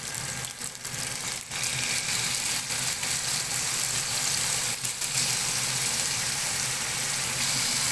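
Oil sizzling steadily in a nonstick pan where onion, garlic and chicken giblets are frying. The sizzle gets louder about a second and a half in, as raw sliced chicken breast goes into the hot oil, with a steady low hum underneath.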